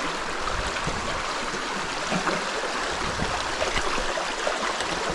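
Shallow forest creek flowing over a rocky bed, a steady rush of running water.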